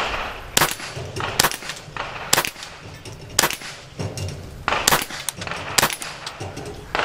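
CBC 7022 .22LR semi-automatic rifle firing a string of about six single shots, roughly a second apart, each a sharp crack. Fainter pops and ticks sound between the shots.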